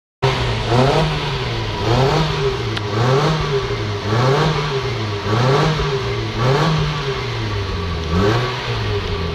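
Mitsubishi Lancer EX 1.8's four-cylinder engine revved in short repeated blips, about one a second, through an aftermarket dual-tip titanium exhaust. Each blip rises and drops back toward idle.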